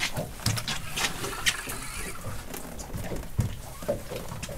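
Irregular sharp knocks and clicks of rod, reel and tackle being handled as a small fish is reeled up and swung aboard, over a steady hiss of wind and sea.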